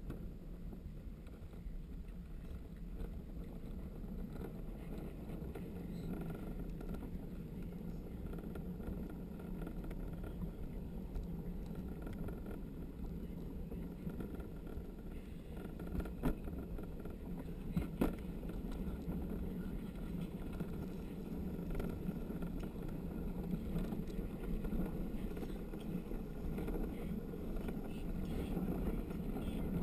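Luge cart rolling down a concrete track: a steady low rumble of the wheels on the track, heard through a body-mounted camera's microphone with some wind noise. Two short sharp knocks come about halfway through, a couple of seconds apart.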